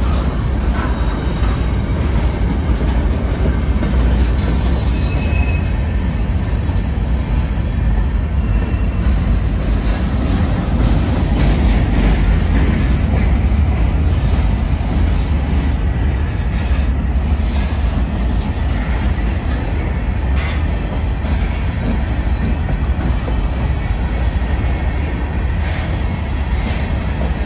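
Covered hopper cars of a freight train rolling past close by, a steady loud rumble of wheels on rail with a few sharp clacks in the second half.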